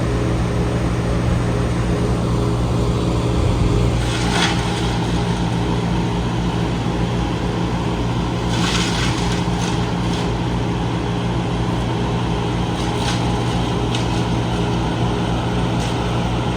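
Heavy machinery engine running at a steady speed, a constant low hum, with a few short bright noises about 4, 9, 13 and 16 seconds in.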